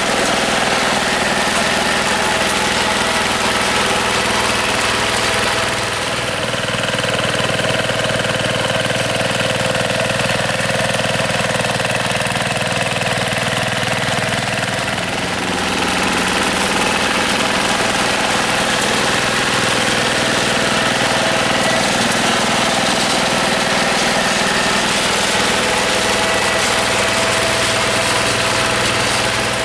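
Yanmar TF105 single-cylinder diesel engine of a two-wheel hand tractor running steadily. Its note changes between about 6 and 15 seconds in, with a slight drop in loudness, then returns to its earlier pattern.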